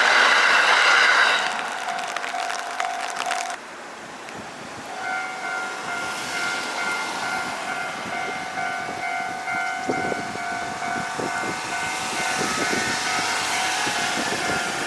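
A shinkansen train rushes loudly past a level crossing while its warning alarm rings. After a sudden cut, another crossing's electronic warning bell starts ringing about five seconds in, a steady repeating two-tone ding. Near the end the noise of an approaching train rises under it.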